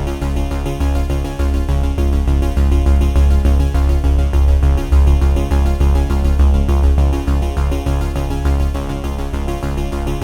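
Electronic background music with sustained tones over a pulsing bass line.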